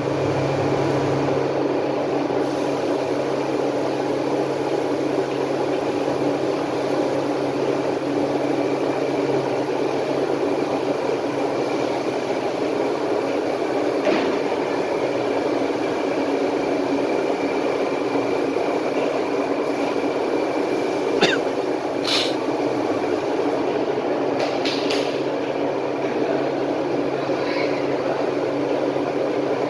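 A 20 kg-per-batch onion-frying machine running steadily while frying onions: a continuous mechanical drone with a low hum, and a few sharp clicks from about halfway through.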